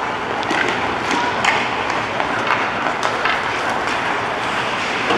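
Ice hockey play on a rink: steady arena noise with skates scraping the ice and frequent sharp clacks of sticks and puck.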